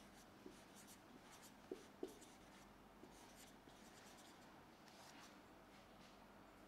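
Faint marker writing on a whiteboard: a run of short strokes with a few light taps of the tip, the loudest about two seconds in.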